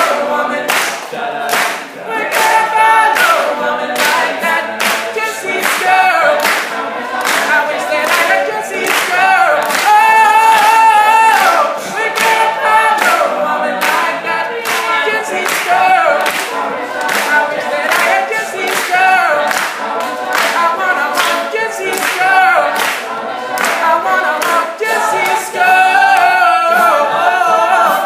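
Male a cappella group singing in close harmony, a solo voice carried over the backing voices, with a steady sharp beat about twice a second.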